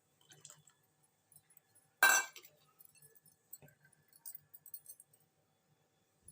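Kitchen utensils clinking against a cooking pot: one sharp, ringing clink about two seconds in, with lighter clicks and clinks around it, as tamarind pulp is added to the boiling water.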